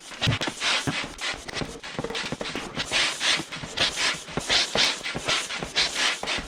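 Hand pump worked in reverse to suck the air out of an inflatable paddle board: quick repeated strokes, about three a second, each a rush of air with a knock.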